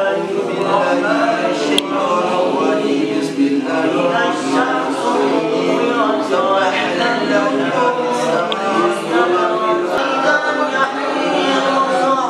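Many voices chanting together, unaccompanied: a class of students reciting aloud from their books in a sung, chanted style.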